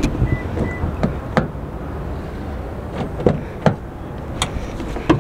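Handheld camera handling noise: irregular knocks and rubs against a cloth hoodie, about seven sharp clicks over a few seconds, over a steady low rumble.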